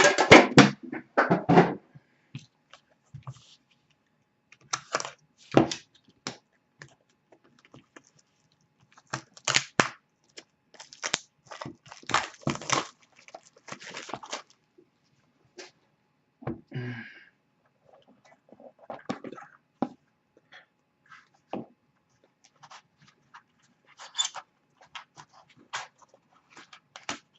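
Irregular crinkling, crackling and tearing of packaging as a box of trading cards is unwrapped and opened by hand.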